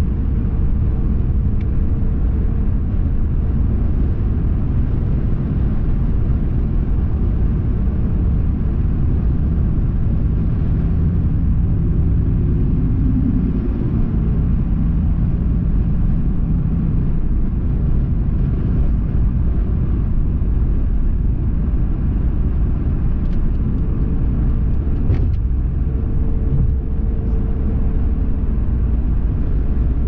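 Car driving at road speed, heard from inside: a steady low rumble of road and engine noise. A faint steady hum drops out through the middle and returns near the end.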